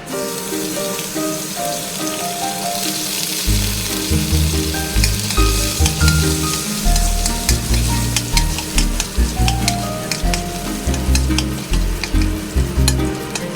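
Food sizzling as it fries in a hot pan, with sharp clicks and scrapes of a utensil stirring it. Background music with a melody plays over it, and its bass line comes in about three and a half seconds in.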